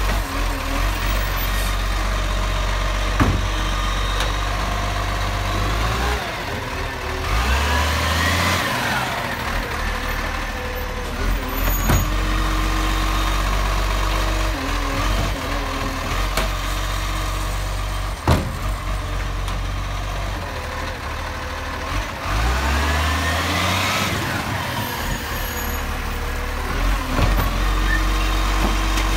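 Side-loading garbage truck idling, its engine revving up twice, rising then falling each time, as the hydraulic lifting arm raises and tips wheelie bins. A few sharp knocks are scattered between.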